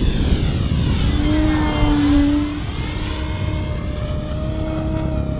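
Electric motor and propeller of an E-flite Extra 300 3D RC plane, a steady buzzing whine that passes close by, loudest in the first half, with wind rumbling on the microphone underneath.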